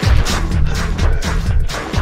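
Electronic dance music with a steady beat over a repeating bass line.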